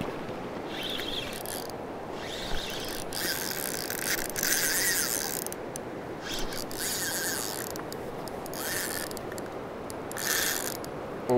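Shallow river water rippling and babbling over stones close to the microphone, with irregular fine crackling and clicking that comes and goes.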